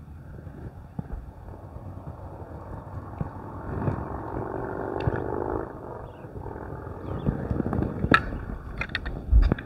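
Wind rumbling on a handheld phone microphone outdoors. A low humming drone swells about three seconds in and fades out about six seconds in. Near the end come a few taps and knocks of handling and a heavy bump.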